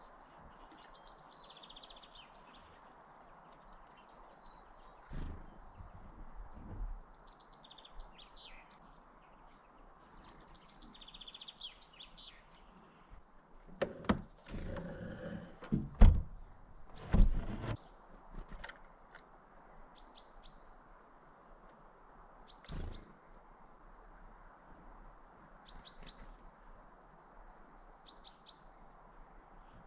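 Small birds chirping and twittering, with quick runs of repeated high notes in the last third. A few loud knocks, bunched about halfway through, are the loudest sounds.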